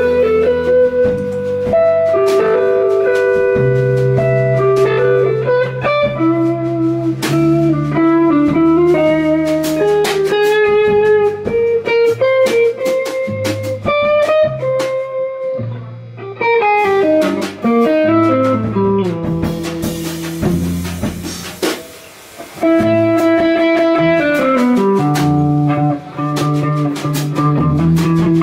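Instrumental band playing live: two electric guitars carrying sustained, overlapping melodic lines over a drum kit with cymbals. The music thins and drops briefly about two-thirds of the way through, then the full band comes back in.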